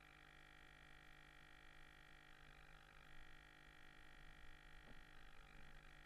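Near silence: a faint, steady electrical hum and whine made of several fixed tones, with faint crackly patches twice.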